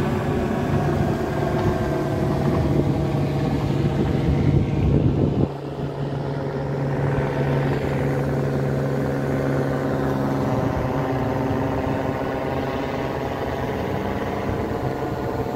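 Helicopter passing overhead, its engine and rotor giving a steady drone. About five and a half seconds in the sound cuts abruptly to a slightly quieter, steady engine hum that runs on.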